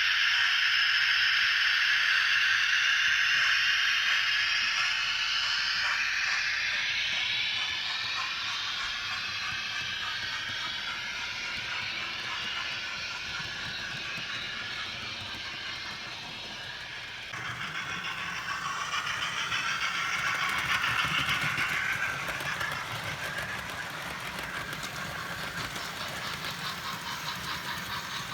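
Steam-locomotive sound effects from a Hornby TTS sound decoder in a model Thompson A2/3 Pacific: a steady steam hiss that slowly fades. Just past halfway it gives way to a fuller running sound with a low rumble, and faint regular ticks near the end, as the model gets under way on the track.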